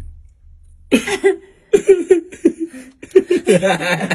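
Suppressed laughter and snickering close to the microphone, starting about a second in and coming in short breathy fits.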